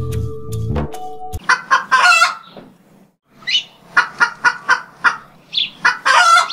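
Intro music ends about a second and a half in, followed by a chicken clucking in a run of short, quick calls with a brief pause in the middle.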